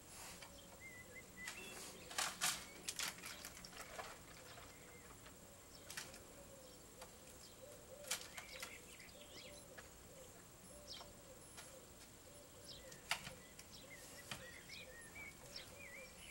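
Faint, irregular clicks and taps of a juvenile starling's beak against a clear plastic window feeder as it pecks at mealworms, the loudest cluster about two seconds in. Faint bird calls chirp in the background.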